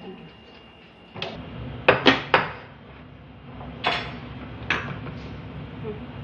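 Kitchenware being handled and set down on a countertop: about six sharp clinks and knocks, the loudest three close together about two seconds in.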